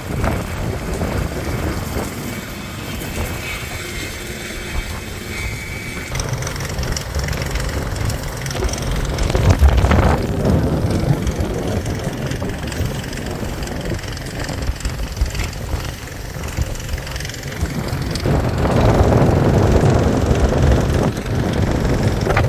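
Aircraft engine noise: a steady low rumble, shifting in level and character a few times.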